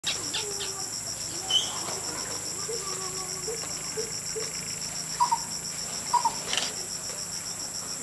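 Steady chorus of insects, crickets or cicadas, with a high note pulsing about five times a second. Over it come a few short bird calls, the loudest a pair of double chirps around the middle.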